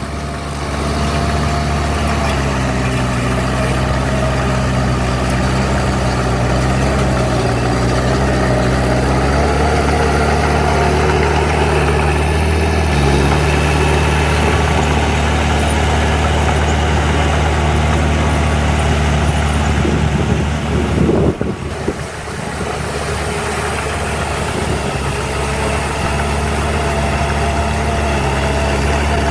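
Diesel engine of heavy earthmoving machinery running steadily, its pitch shifting a little over the first ten seconds, with a brief dip about twenty-one seconds in.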